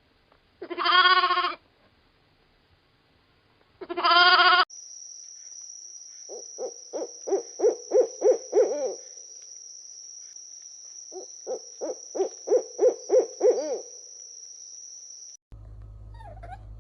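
Two short bleats about three seconds apart. Then a different animal gives two runs of about eight quick, evenly repeated calls, each run growing louder, over a steady faint hiss.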